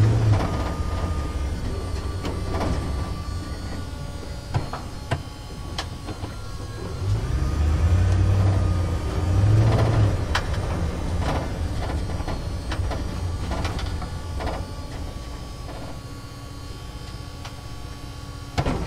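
A truck driving through a parking structure: a low engine rumble that swells louder twice near the middle, with scattered clanks and knocks.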